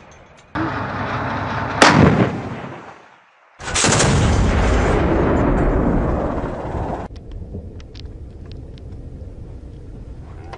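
Heavy rocket fire from a pickup-mounted launcher: a sudden loud roar starts about half a second in, with a sharp crack near two seconds. After a brief drop, another long rumbling roar cuts off abruptly about seven seconds in, leaving quieter wind noise with scattered clicks.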